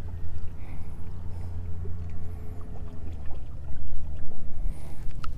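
A boat motor humming steadily at a low, even pitch.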